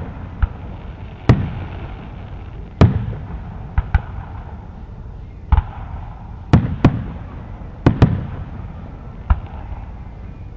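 Aerial fireworks shells bursting in an irregular volley, about ten sharp booms, some in quick pairs, each followed by a low rumbling echo.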